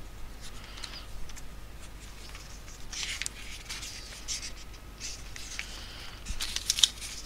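Paper pages of a book being leafed through: short papery rustles and flicks, thickening near the end with one sharper snap, as a passage is searched for.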